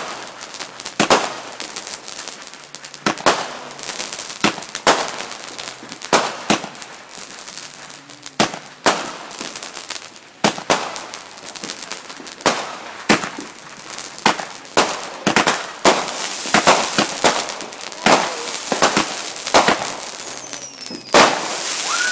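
Consumer fireworks going off in a rapid, irregular string of sharp bangs and crackling, getting denser and more crackly toward the end. A falling whistle is heard near the end.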